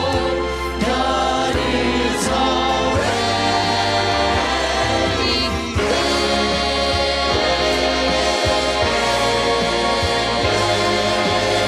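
A vocal trio of two women and a man singing a gospel song in harmony over instrumental accompaniment, with held notes over a steady bass line.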